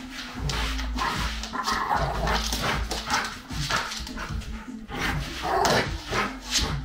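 A large brindle dog barking and whining in short, irregular bursts during rough play-fighting with a person.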